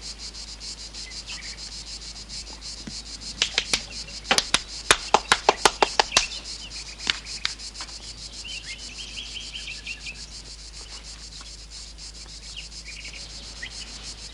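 Insects chirping in a steady, rapid pulse, with one person clapping hands about a dozen times a few seconds in.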